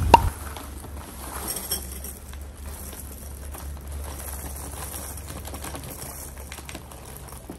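Dry cereal pouring from a plastic bag into a ceramic bowl: a steady rustle with many small clicks as the pieces land. A single sharp click comes right at the start.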